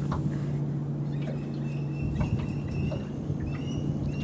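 Outboard motor idling with a steady low hum, with a few short high chirps above it.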